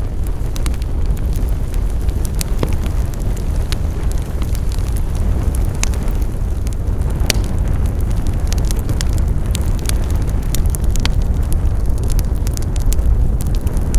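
Wood fire burning, crackling and popping irregularly over a steady low rumble.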